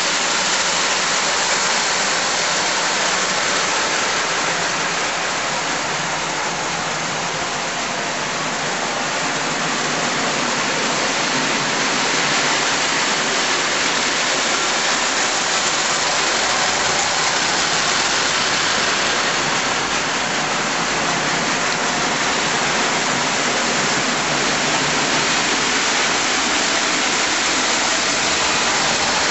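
Two Boucher 2100 standard gauge tinplate locomotives, double-headed, running with a freight train. Their wheels on the metal three-rail track and their electric motors make a steady, dense clatter that stays at much the same level throughout.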